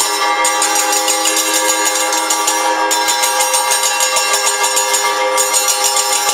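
Temple bells and cymbals ringing in fast, unbroken strokes during the lamp aarti, over a steady sustained tone held at several pitches.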